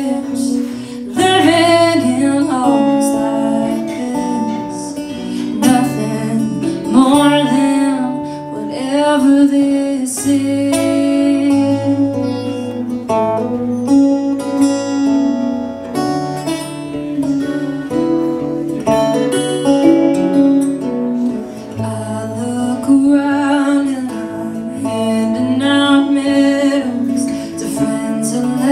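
A woman singing a song to acoustic guitar accompaniment.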